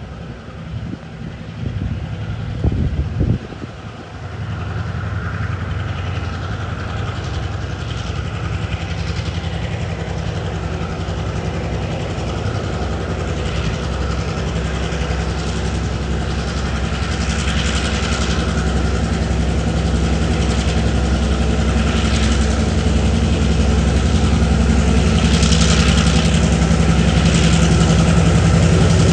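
Diesel-electric freight locomotive DQ 2002 heading a TasRail freight train: a steady low engine drone that grows louder as the train approaches. A short burst of low thumps comes about three seconds in.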